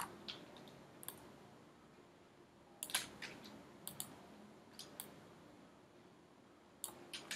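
Faint, scattered clicks of a computer mouse, several in quick pairs of press and release, as objects are selected and dragged in the modeling software.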